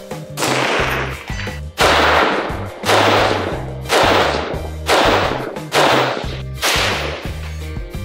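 Stag Arms 10S AR-10 rifle in .308 firing semi-automatic shots, about one a second, each sharp at the start and fading over most of a second, over background music with a pulsing bass line.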